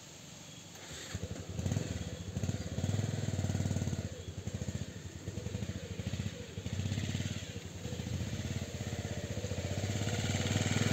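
Motorcycle engine running as the bike is ridden over grass, its note rising and falling with the throttle from about a second in and getting louder near the end as it comes closer.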